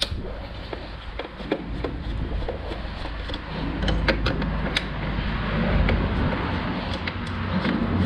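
Scattered clicks and knocks of plastic parts being handled as the impeller housing of a Dolphin pool-cleaning robot is taken apart, over a steady noise. A low rumble builds about halfway through.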